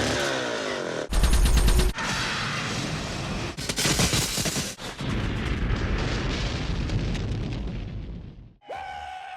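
Quick-cut montage of action-film sound effects from George Miller's films: gunfire and blasts, each clip cut off abruptly after a second or so, then a long noisy rumble that fades out. Near the end comes a short steady pitched tone.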